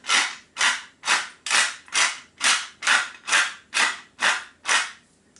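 Hand-held pepper mill grinding peppercorns: about eleven short twists, roughly two a second, stopping near the end.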